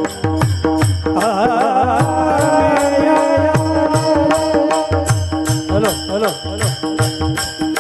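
Marathi devotional bhajan singing: a male voice holding long, wavering ornamented notes over a steady sustained accompaniment, with a drum beating low strokes and small cymbals clicking in a regular rhythm.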